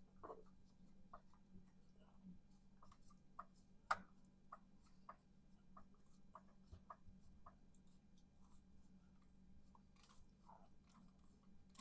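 Near silence with faint scattered clicks and taps, one sharper click about four seconds in, over a faint steady hum.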